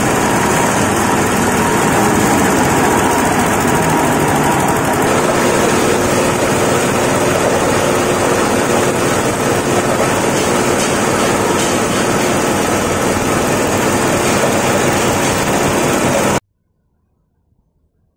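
Small engine-driven grinding mill for rice husks and corncobs running at full speed while material is hand-fed into its hopper: a loud, steady mechanical din. It cuts off abruptly near the end.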